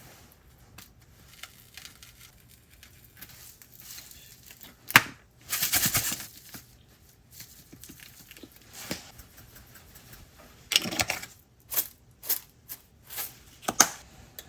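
Handling noises: light clicks, a sharp knock about five seconds in followed by a brief rustling, tearing sound, then a quick run of knocks and rustles near the end.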